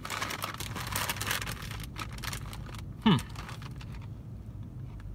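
Foil potato chip bag crinkling as it is handled, densest in the first two seconds. About three seconds in, a short falling vocal sound stands out, louder than the rustling.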